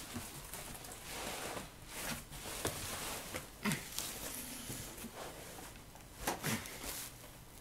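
Packing being handled: bubble wrap, plastic sheeting and cardboard rustling and crinkling as a heavy amplifier chassis is worked out of its box, with several sharp crackles.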